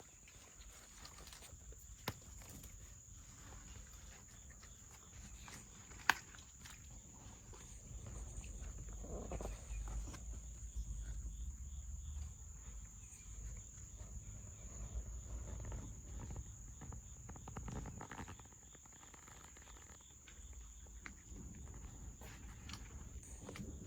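Steady high-pitched drone of insects such as crickets, with scattered clicks and rustling, and a louder low rumble in the middle.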